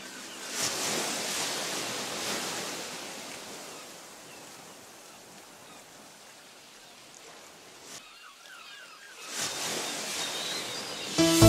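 Small waves washing up a sandy shore: a swell of surf about half a second in and another near the end, fading quieter in between. Electronic music cuts in at the very end.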